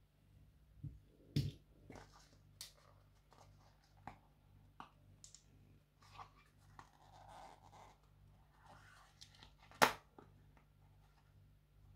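Cardboard packaging and a small plastic action figure being handled: scattered rustles, light clicks and taps, with a sharper click about ten seconds in.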